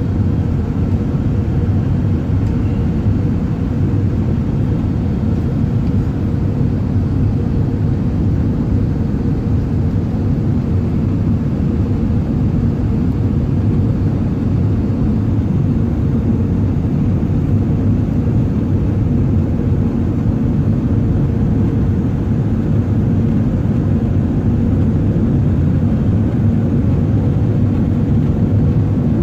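Steady low rumble of an Airbus A380 heard from inside the passenger cabin, with a faint steady hum over it.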